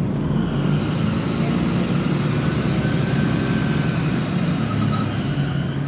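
Volvo B10M bus's underfloor diesel engine running steadily under way, with a faint high whine that rises and then falls across the few seconds, part of the screeching noises of an unhealthy bus.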